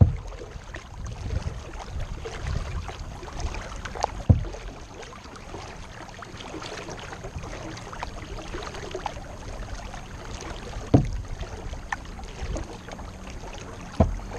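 Kayak paddling: paddle blades dipping and water splashing and dripping, with a steady low rumble. Four sharp knocks stand out, the loudest about four seconds in.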